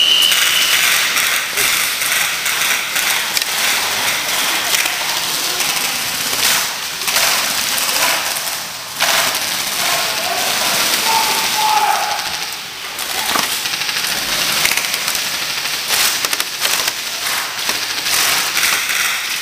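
Airsoft guns firing in rapid, near-continuous rattling bursts during an indoor close-quarters game, with players shouting over them. A short, high whistle tone ends within the first second.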